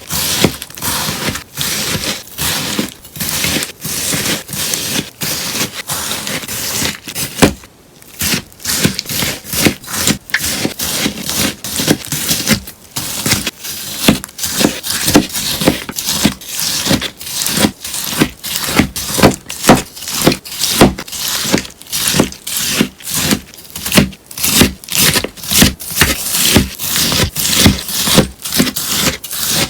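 Scissors cutting through a sponge in repeated crisp snips, about two to three a second, with a short pause about eight seconds in.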